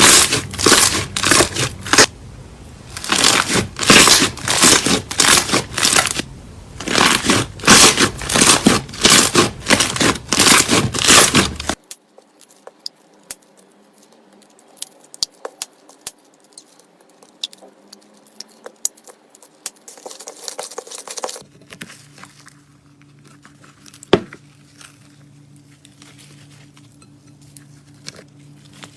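Slime being squeezed and pressed by hand, giving loud crackling, crinkly strokes in quick succession for about twelve seconds, then much quieter scattered clicks and crackles as it is poked and stretched, with one sharp click near the end.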